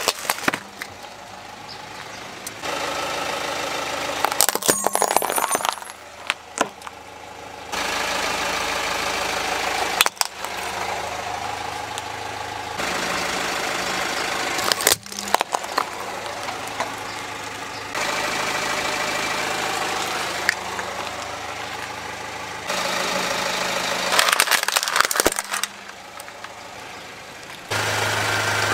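Car engine running as the tyres roll over and crush plastic toys, with sharp cracks and snaps of breaking plastic several times. The engine sound changes abruptly every few seconds from one short crushing shot to the next.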